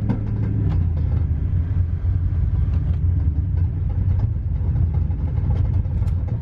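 A supercharged GM full-size pickup coasting down with its engine running at low revs just after its driveshaft has broken: a steady low drone with a constant clatter of rapid knocks and rattles from underneath. The sound drops away right at the end as the truck slows nearly to a stop.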